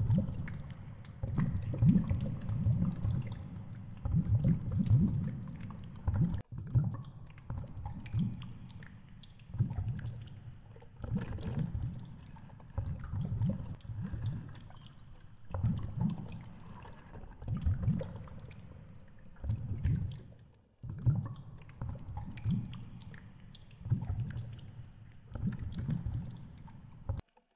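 Muffled underwater water noise picked up by a GoPro in its waterproof housing hanging on a line at depth: low surges that swell and fade every couple of seconds as the camera sways in the water. It cuts off abruptly near the end.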